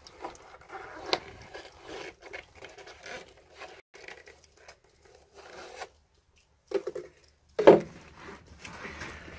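Black plastic 110 mm soil pipe branch being twisted and pulled out of a PipeSnug pipe seal in a brick wall: plastic scraping and rubbing against the seal in short strokes, with a louder knock near the end as the pipe comes free.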